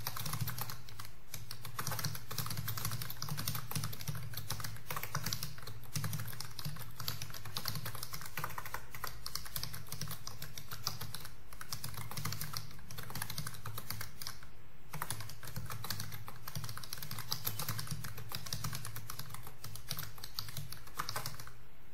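Fast typing on a computer keyboard at about 90 words a minute: a rapid, steady stream of key clicks over a low steady hum. The typing stops near the end.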